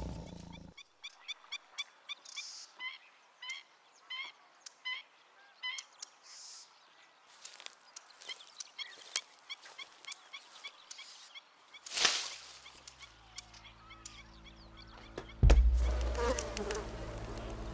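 Forest ambience: short chirping calls repeating about every half second for the first several seconds, over scattered small clicks. About twelve seconds in comes a single loud hit, and near the end a heavier boom that leaves a steady low rumble.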